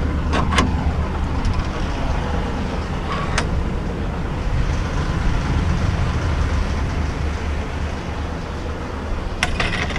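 Rubbish truck's diesel engine running steadily at a low rumble, with a few short sharp clicks near the start, about three seconds in, and near the end.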